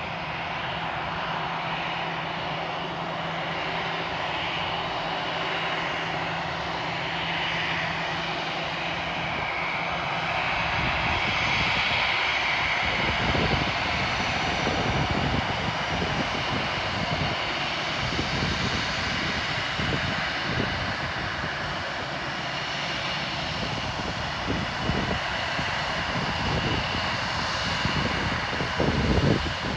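Airbus A320 jet engines running at taxi power as the airliner taxis past, a steady whining rush that grows a little louder as it draws near. From about halfway through, irregular low buffeting from wind on the microphone runs under it.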